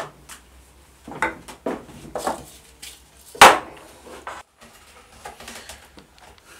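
Thin bentwood sieve rims being handled and set down on a metal-topped workbench: a run of wooden knocks and clatters, with one sharp, loud knock about three and a half seconds in.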